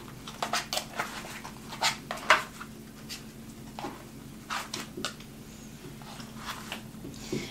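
Pieces being moved on a wall-hanging demonstration chessboard: a string of light, irregular clicks and taps as they are pulled out and set back in place.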